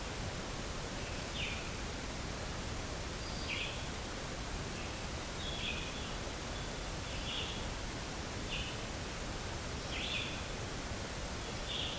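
A small bird calling over and over, short high chirps about once every second or so, over a steady background hiss.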